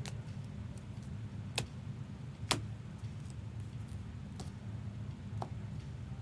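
Scattered sharp clicks and taps from handling trading cards and plastic card holders, about five in all, the loudest about two and a half seconds in, over a steady low hum.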